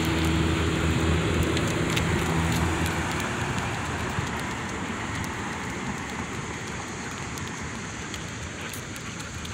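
Street traffic: a motor vehicle's engine running steadily with a low hum that dies away about three seconds in, and road noise slowly fading after it.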